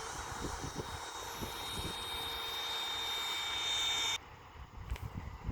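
Electric ducted-fan whine from a Freewing Avanti S 80mm RC jet: a steady high-pitched tone, with wind buffeting the microphone. The whine cuts off abruptly about four seconds in, leaving the wind rumble.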